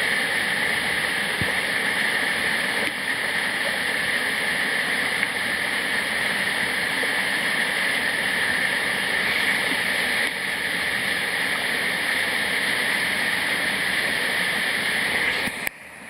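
Waterfall: a steady, even rush of falling water that cuts off suddenly near the end.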